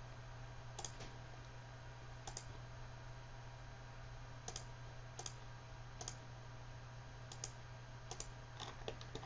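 Computer mouse clicking, about ten single clicks spaced irregularly, a few coming closer together near the end, over a faint steady low hum.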